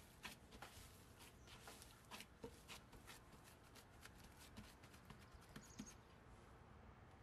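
Gloved hands kneading and pressing a soft mashed-potato mixture in a glass bowl: faint squelches, pats and glove rustles in a quick, uneven run that stops about six seconds in.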